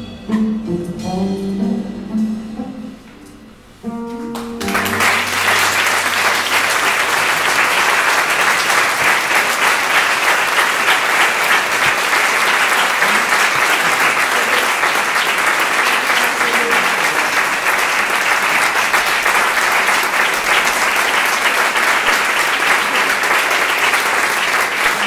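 A live band plays the closing notes of a song and ends on a short final chord about four seconds in. The audience then applauds, loud and steady.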